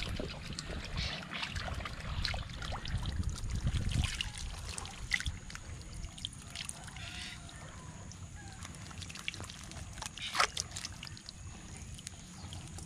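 Water splashing and trickling as hands work in shallow water at the mouth of a split-bamboo fish trap, with scattered small clicks and knocks from the bamboo; one sharper knock about ten seconds in.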